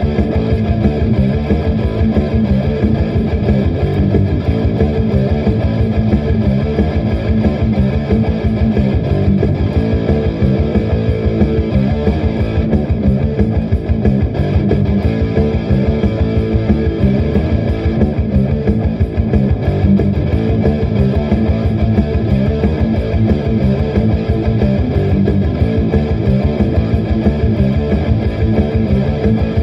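Distorted electric guitar playing a heavy metal riff, picked fast and steadily with the weight in the low notes.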